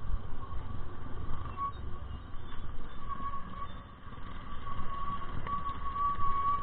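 Riding noise from a Honda Click 125i scooter moving slowly downhill: a rough wind-and-road rumble on the camera microphone, with a thin steady whine over it. The rumble dips briefly about four seconds in.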